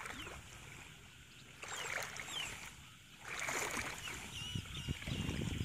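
Water sloshing and splashing as people wade through shallow floodwater pushing a hand net, in two main surges about two and three and a half seconds in. A low rumble comes up near the end.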